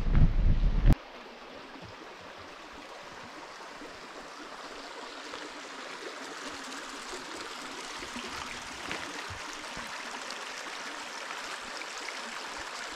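Wind buffets the microphone for about the first second and cuts off abruptly. Then a small shallow creek runs steadily over stones and gravel with an even babble that grows slightly louder.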